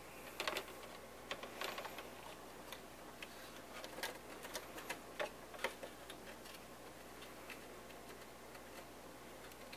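Scattered light clicks and ticks of a hex driver turning out a small Allen screw and knocking against a fiberglass model-helicopter fuselage.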